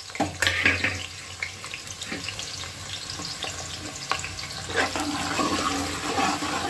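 Sliced onions sizzling in hot oil in a pressure cooker as they start to fry, stirred with a spoon that knocks against the pot now and then.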